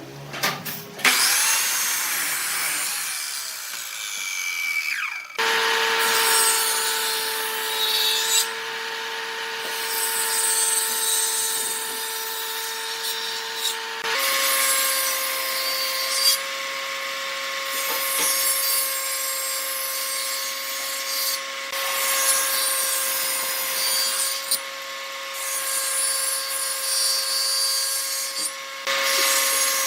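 Wood lathe running with a steady motor hum while a turning tool cuts the spinning wood, giving a rasping hiss of shavings that swells and eases with each pass. The hum steps slightly higher about halfway through.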